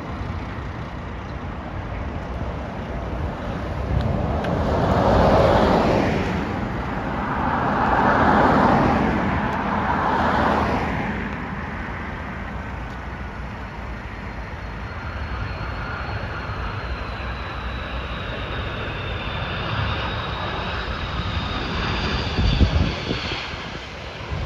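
Road vehicles passing close by in three swells of noise. They give way to the steady rumble of an airliner on final approach, a thin high engine whine sliding slowly down in pitch. A short thump comes near the end.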